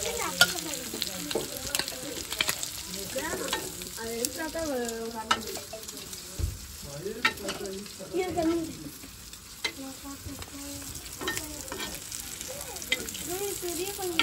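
Prawns sizzling in oil on an iron griddle pan while a metal spatula stirs and scrapes them, with sharp clinks of metal on metal. Near the end the fried prawns are scooped off the pan into a steel bowl.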